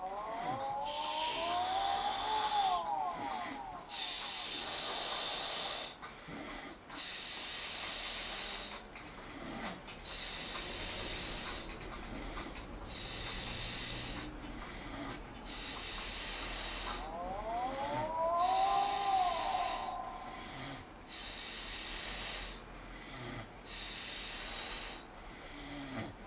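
A sleeping man snoring and breathing heavily, each breath a loud hissing rush lasting a second or two, in a steady rhythm.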